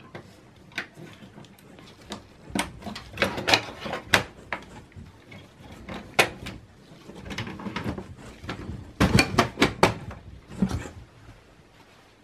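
Plastic power connector and its cables being handled and pushed home on a desktop motherboard: an irregular run of clicks, knocks and rustling, with a cluster of sharper knocks about nine seconds in.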